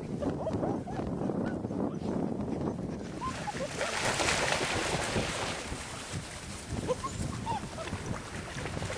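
White Swiss Shepherd puppies giving a few short, high squeaky whimpers amid scuffling on sand, with a rush of wind on the microphone from about three seconds in.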